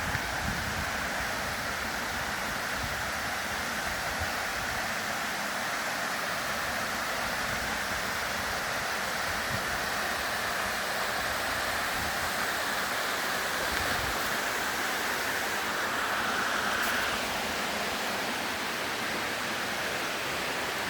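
Steady rush of a waterfall's falling water, an even hiss that swells a little and then eases about three-quarters of the way through.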